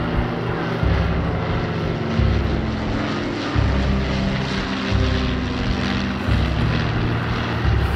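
Avro Lancaster's four Rolls-Royce Merlin piston engines, with the accompanying Spitfire's, droning steadily as the pair fly past overhead. The deep engine note throbs, swelling and fading about once a second.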